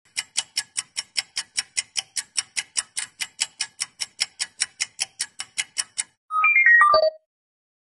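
Studio logo sting: a fast, even ticking of about five clicks a second for about six seconds, then a short falling run of bright notes that cuts off abruptly.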